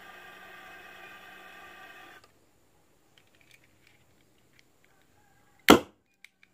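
A steady hiss with a whistling tone for about two seconds, then, after a quiet pause, a single sharp loud bang as a homemade PVC gas combustion chamber is fired.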